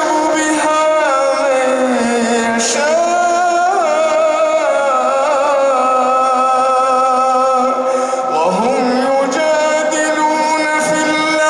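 A man's voice reciting the Quran in a slow, melodic chant, holding long notes and sliding through ornamented turns.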